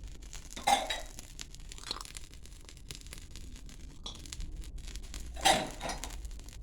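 Light suction cupping cups being worked on a child's chest: two short, louder noises about five seconds apart, with fainter ones in between.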